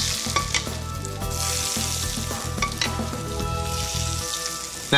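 Hot olive oil sizzling in a frying pan after pan-frying lamb steaks with garlic, with a few sharp taps of a metal spoon against the pan.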